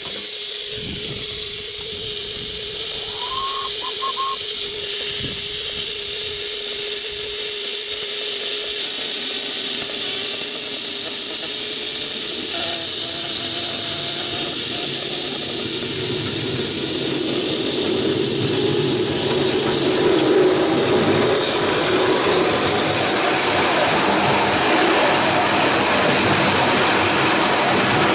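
5-inch gauge live steam model of a Duchess class locomotive hissing steadily with steam, a steady low tone under the hiss for the first dozen seconds. From about halfway the rougher noise of the engine running along the track grows beneath the hiss.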